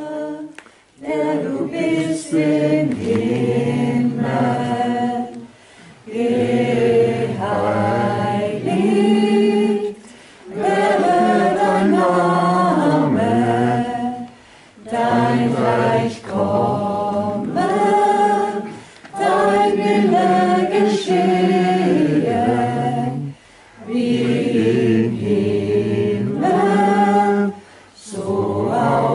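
A small vocal group singing a cappella in several-part harmony, in phrases of about four seconds with short breaks between them.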